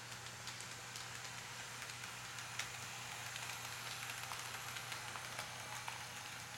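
HO scale Proto 2000 GP30 model locomotive and its freight cars rolling along the track: a faint, steady hiss of motor and wheels with scattered small clicks, a little louder as the locomotive passes close in the middle.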